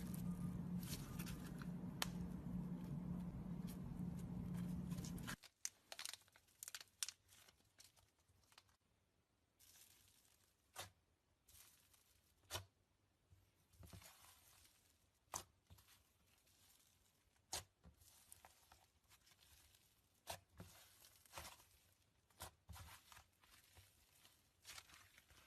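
Glitter slime being handled: stretched, pressed and popped, giving irregular sticky clicks, pops and crackles. The first few seconds carry a steady low hum under the handling noise, and after a cut about five seconds in the pops are quieter and more spaced out.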